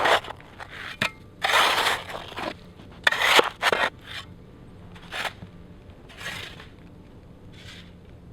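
Snow crunching and scraping in loud, uneven bursts, a few strong ones in the first half, then fainter, spaced-out ones.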